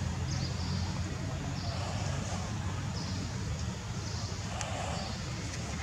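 Outdoor background noise: a steady low rumble, with short high chirps every second or so.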